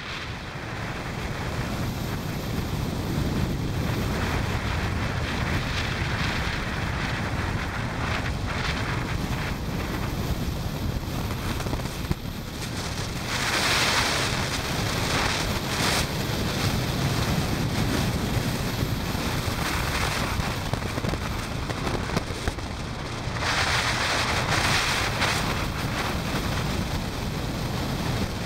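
Wind buffeting the microphone of a moving motorcycle, over the steady low rumble of its engine and the road. The wind rush grows louder for a couple of seconds about halfway through and again near the end.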